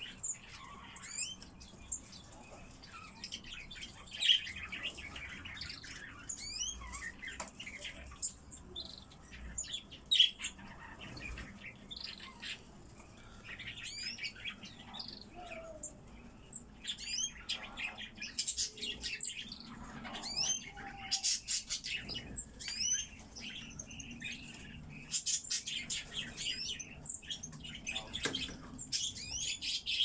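Many small aviary songbirds chirping and calling together, a busy mix of short high chirps and trills that grows thicker in the second half, with an odd sharp knock.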